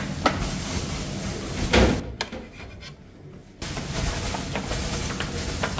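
Water sprinkled from a plastic bottle into a hot clay tandoor lined with samsa, hissing as it turns to steam, with a few light clicks and a knock about two seconds in. The hiss drops away for about a second and a half midway, then returns.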